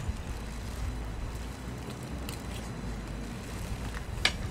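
A metal spoon clinking and scraping a few times on a ceramic plate, with one sharper clink near the end, over a steady low rumble.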